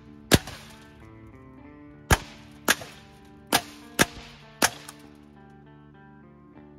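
Six shots from a Savage 64F semi-automatic .22 LR rifle fired through a pillow held over the muzzle as an improvised silencer: one shot just after the start, then five quicker shots about half a second apart, over steady background music.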